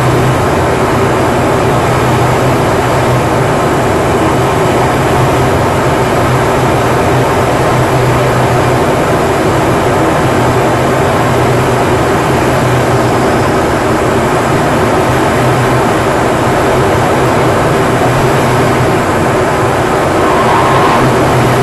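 Steady cockpit noise of a Northrop F-5 fighter jet in flight: its twin jet engines and the air rushing past blend into one loud, unbroken noise with a low hum in it.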